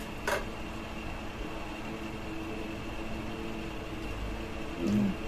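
Steady machinery hum with a faint high whine, under one light clink of a metal spoon on a ceramic bowl shortly after the start. A short, low "mm" near the end.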